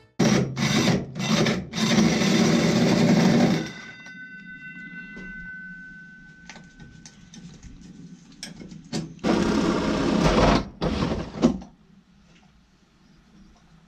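Power tool cutting holes, in two loud bouts of a few seconds each. A ringing tone lingers for a couple of seconds after the first bout stops.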